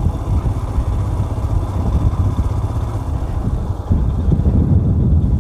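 Motorcycle running on the road, with a steady, dense low rumble.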